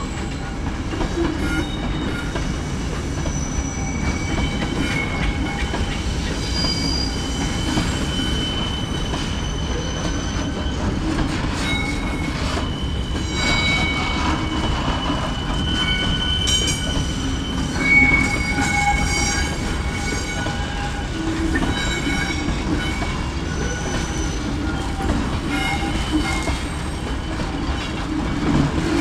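Freight train of intermodal wagons rolling slowly past, with a steady low rumble and many short high-pitched wheel squeals, plus scattered clicks from the wheels over the rail joints.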